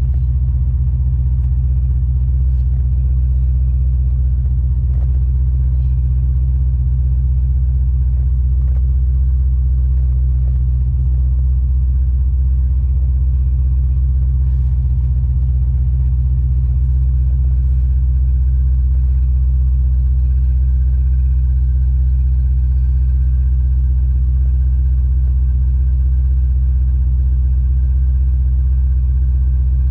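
LS-swapped 1989 Chevrolet Caprice on the move: a steady low rumble of engine and road noise, even throughout.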